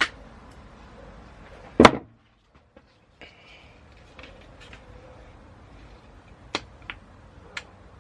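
Sharp plastic snaps and clicks from handling a Loctite two-part epoxy syringe as its tips are broken off: one loud snap about two seconds in, then three lighter clicks near the end.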